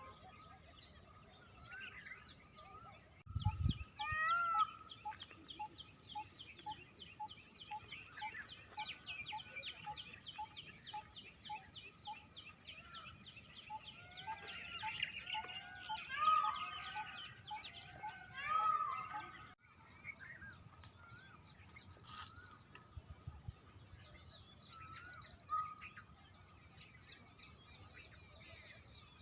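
Several wild birds calling at once: a fast run of high, dry notes lasting several seconds over a repeated lower note, with other chirps and short whistles. A low thump comes about three and a half seconds in.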